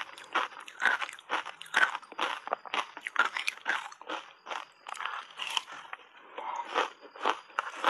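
Reshaped ice coated in matcha powder being bitten and chewed: a quick run of sharp, crisp crunches, about three or four a second.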